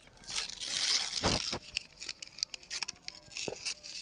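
Ruled notebook paper being torn and handled: a rough tearing rasp through the first second or so, then a run of crinkles and small crackles as the torn pieces are worked, with a dull knock about a second in and another near the end.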